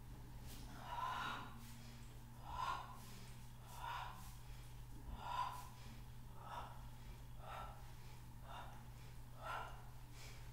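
A woman's sharp, rhythmic breaths out, about eight in a row at roughly one a second, timed to the repetitions of a Pilates abdominal exercise: breathing under exertion.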